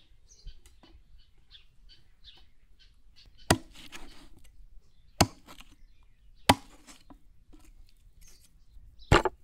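Four heavy chopping blows, each a sharp crack, spaced one to two and a half seconds apart; the last comes as a quick double stroke. Faint bird chirps run behind them.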